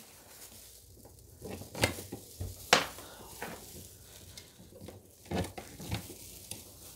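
Artificial Christmas tree branches rustling and clicking as they are handled and fitted into the tree's central pole, with a few sharper clicks about two and three seconds in and again past five seconds.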